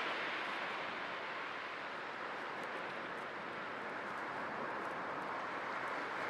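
Sea waves washing ashore in a continuous rush of surf, easing a little in the middle and building again near the end.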